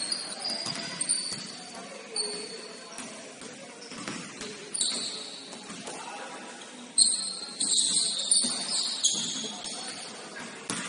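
Basketball game in play on an indoor court: sneakers squeaking in short high chirps, clustered near the end, with the ball bouncing and players' voices calling in the background.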